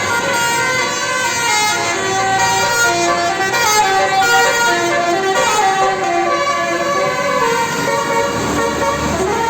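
Bus telolet horn, a multi-tone musical air horn, playing a tune of short stepping notes that change pitch every fraction of a second. A low rumble comes in near the end.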